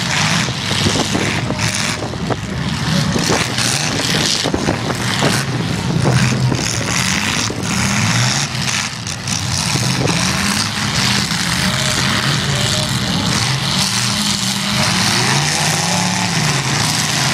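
Demolition derby cars' engines revving up and down over and over, with repeated sharp metal bangs and crunches from collisions.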